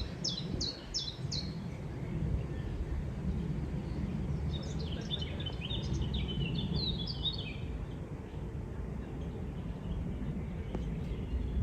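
Songbirds singing: a quick run of about five repeated high, falling notes at the start, then a longer twittering phrase a few seconds later, over a steady low rumble of outdoor ambience.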